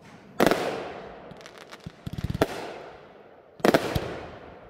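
Aerial fireworks going off: two loud bangs about three seconds apart, each with a long fading echo, and a quick run of crackling pops between them.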